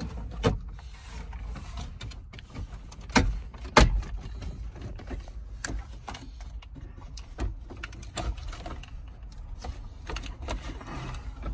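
Plastic radio dash bezel of a Chevrolet Silverado being pulled off, its retaining clips letting go in several sharp snaps, the loudest about four seconds in.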